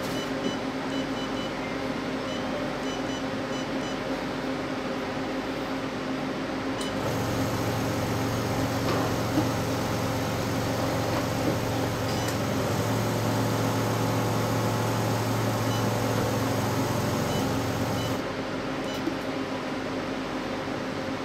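A portable cryolipolysis fat-freezing machine running with a steady hum, its touchscreen beeping briefly several times as settings are pressed in the first few seconds. From about seven seconds in until about eighteen seconds, a louder steady pump sound with a low hum joins as a treatment channel runs.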